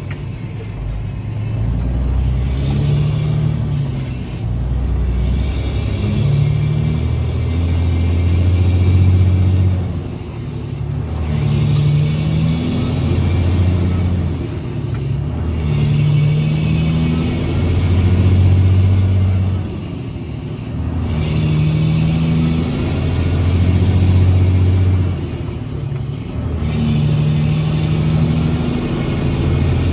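Loaded Peterbilt semi tractor's diesel engine pulling away and working up through the gears. The engine note pulls for a few seconds, then drops off briefly at each shift, about five times. A faint high whine rises and falls with each pull.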